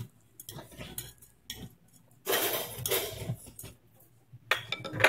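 Tableware sounds while eating phở: chopsticks and spoons clicking against ceramic noodle bowls, with a loud slurp of noodles lasting about a second midway and a quick run of sharp clicks near the end.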